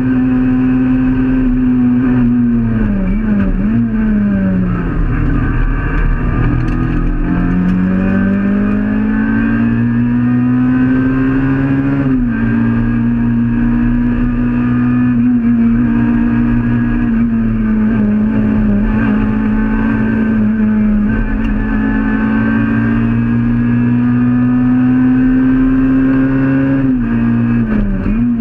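Peugeot 106 rally car's engine driven hard, heard from inside the cabin. The pitch dips and recovers a few seconds in, climbs steadily, and drops suddenly at gear changes about twelve seconds in and again near the end.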